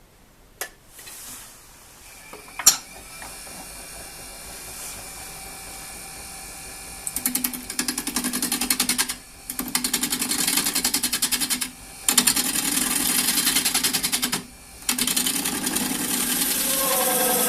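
Two sharp clicks and a faint steady hum, then a fast, evenly repeating mechanical clatter from about seven seconds in that breaks off briefly three times.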